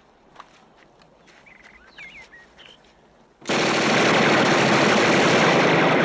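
A few faint bird chirps, then about three and a half seconds in a submachine gun opens up in one long, loud, unbroken burst of automatic fire.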